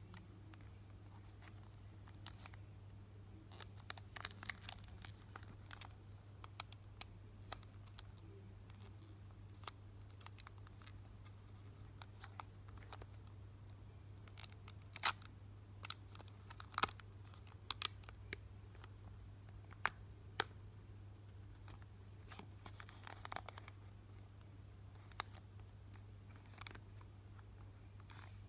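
Foil booster pack wrappers crinkling and tearing as they are handled and pulled open by hand, in scattered sharp crackles that come thickest about halfway through.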